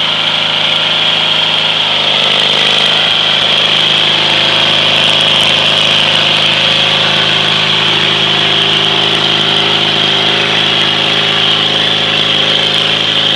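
Craftsman lawn tractor's 18 hp Briggs & Stratton engine running steadily while the rear tires spin in mud.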